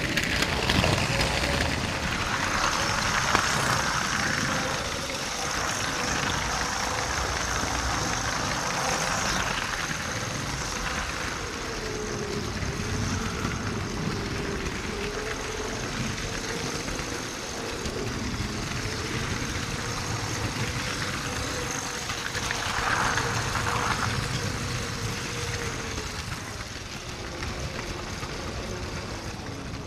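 LEGO Power Functions train motors running the locomotive along, a steady whine that wavers a little in pitch, over a constant rattle of plastic wheels on LEGO track.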